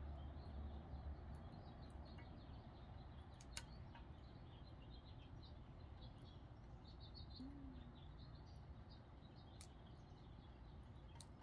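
Near silence: faint outdoor ambience with a low hum, scattered tiny ticks and a few faint high chirps.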